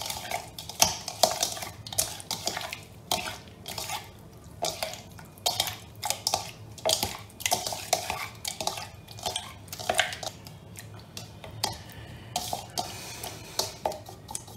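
A hand mixing marinated fish pieces in a bowl: the wet fish and hand rub and knock against the bowl in irregular strokes, about one or two a second, growing quieter near the end.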